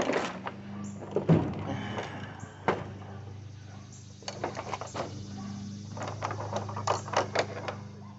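Scattered knocks, clicks and clanks of tools and metal parts being handled while a mobility scooter is taken apart, over a steady low hum.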